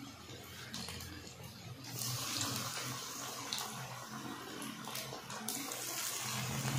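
Besan-battered chicken pakoras deep-frying in hot ghee in a steel karahi: a steady bubbling sizzle that grows louder about two seconds in, as more pieces go into the oil.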